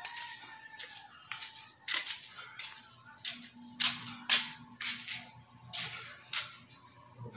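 Footsteps scuffing and grating on a gritty concrete floor, a string of uneven scrapes about every half second, the two loudest near the middle.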